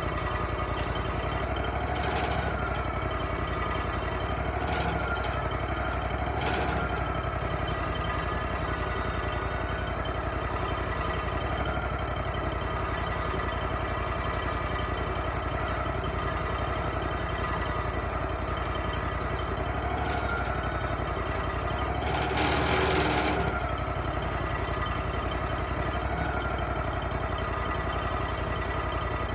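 Wood-Mizer LT35HD portable band sawmill's engine running steadily, with a few short louder swells, the biggest a little over three-quarters of the way through.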